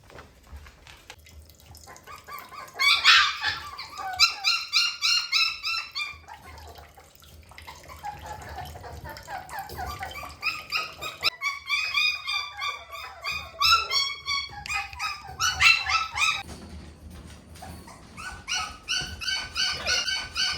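Shiba Inu puppies yipping and whining in high-pitched squeals as they play, in several runs of quick calls with short lulls between.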